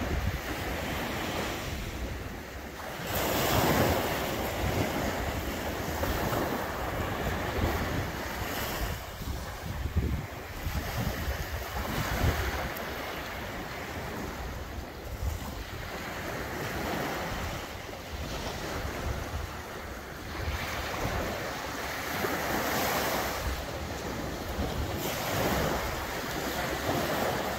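Small sea waves breaking and washing up a sandy beach, the surf rising and falling in surges every few seconds, with wind rumbling on the microphone.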